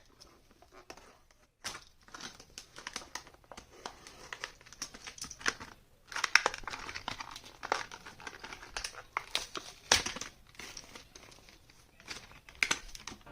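Plastic and cardboard packaging of a Hot Wheels diecast car crinkling and tearing as it is opened by hand: a busy run of sharp crackles and clicks, thickest around the middle.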